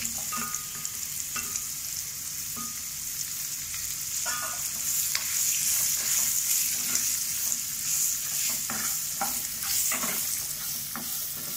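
Chopped onions sizzling in hot oil in a non-stick frying pan, with a steady hiss. A plastic spatula stirs them, scraping and knocking against the pan every second or few.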